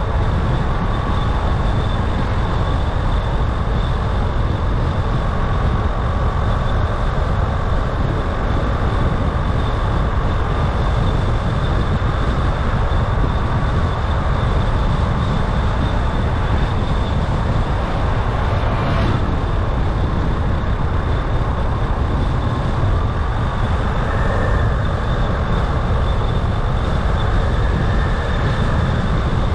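Steady road noise of a car driving through city traffic: engine and tyre rumble with a faint continuous high whine. A brief sharper sound comes about two-thirds of the way through.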